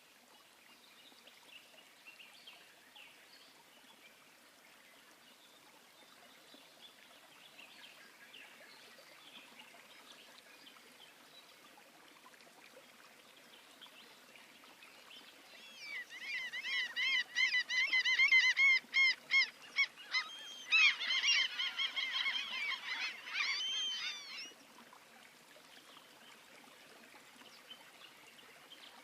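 A bird calling in a rapid series of loud, repeated pitched notes, about three a second, for some eight seconds before stopping abruptly; fainter bird chirps sound beforehand.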